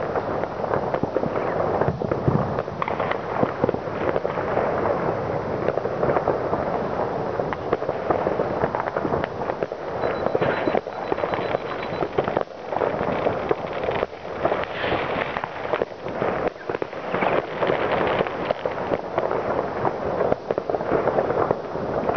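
Many fireworks and firecrackers going off at once across a town and heard from afar: a dense, unbroken crackling with frequent sharp bangs.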